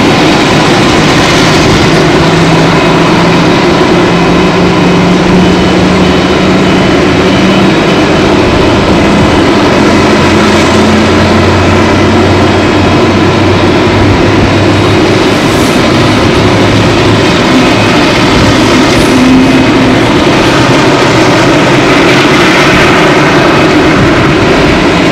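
Boeing 747-400's jet engines running during engine start: a loud, steady roar with a low hum that rises slowly in pitch over the first ten seconds as an engine spools up.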